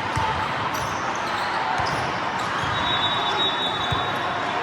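Balls thudding and bouncing on a gym floor amid a steady hubbub of crowd noise, with a high squeak lasting about a second partway through.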